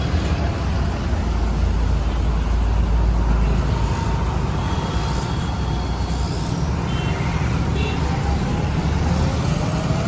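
Diesel engines of a convoy of Preet combine harvesters running past close by, mixed with road traffic: a loud, steady low engine noise that swells a little a few seconds in.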